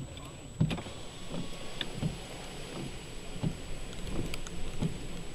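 Tropical-storm wind buffeting the microphone in repeated low thumps, over a steady hiss of heavy wind-driven rain.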